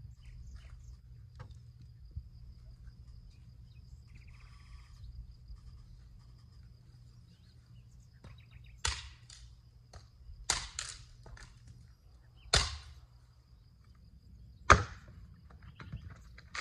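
Hatchet chopping into a dry, weathered log: about six sharp separate strikes in the second half, the last one the loudest.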